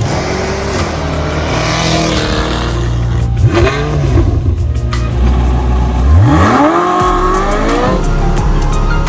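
Supercar engine revving hard, its note sweeping up in pitch about three seconds in and again, more strongly, about six seconds in.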